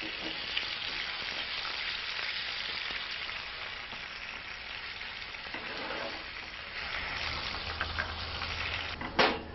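Pieces of smooth-hound (mussola) fish frying in hot oil in a pan, with a steady sizzle. A single sharp knock sounds near the end.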